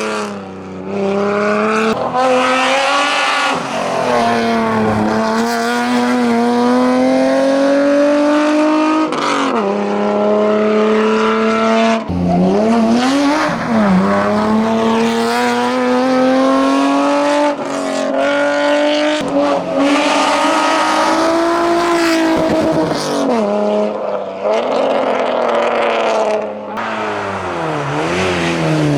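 Hillclimb competition car's engine driven hard, its note repeatedly climbing in pitch and falling back at each gear change or lift of the throttle.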